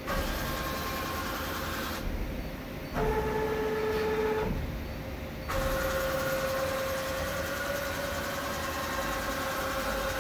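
CNC deburring and chamfering machine at work: a spindle-driven abrasive disc grinds the edges of helical gear teeth while the servo axes reposition the tool. It gives a steady motor whine over grinding noise, and the pitch and level shift several times. There is a louder stretch with a lower whine from about three to four and a half seconds in.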